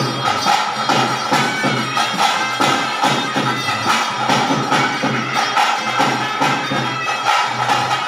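Traditional daiva kola ritual music: a reedy double-reed pipe holds a sustained melody over a steady drone, with drum beats about three times a second.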